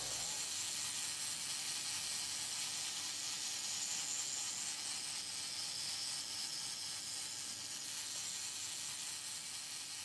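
Steady, even hiss with no distinct events, strongest in the upper range, like background noise of a recording.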